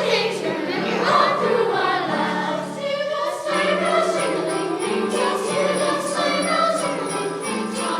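Youth choir singing a seasonal song with jingle bells and a steady low accompaniment, the voices pausing briefly about three and a half seconds in.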